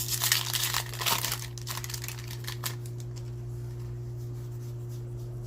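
Foil booster pack wrapper crinkling and tearing for about the first two and a half seconds, then only a steady low hum.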